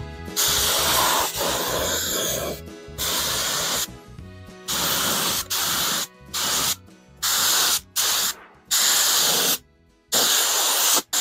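Compressed-air paint spray gun hissing in short bursts as its trigger is pulled and released, about nine sprays with the first one longer. It is laying a coat of paint onto a steel mower deck.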